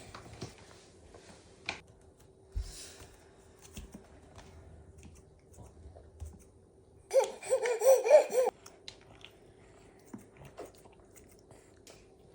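A high-pitched voice gives a short burst of quick, wavering cries about seven seconds in, lasting about a second and a half. Faint clicks and small mouth noises fill the rest.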